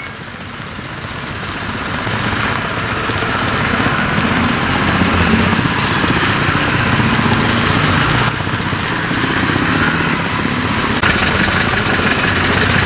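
Vehicle engines running at low speed, over a steady hiss of rain on the wet road. The sound builds over the first few seconds, then holds steady.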